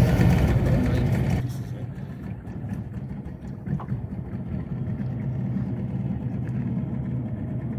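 Engine running with a steady low rumble, which drops to a quieter, duller rumble about a second and a half in.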